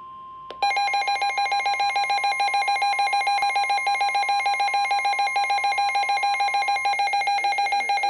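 Weather alert radio sounding a warning alert. The broadcast's steady warning tone is joined about half a second in by the receiver's own loud alarm, rapid pulsing beeps. The steady tone ends a second before the close while the beeping continues. The alarm signals a warning-level alert, here a lakeshore flood warning.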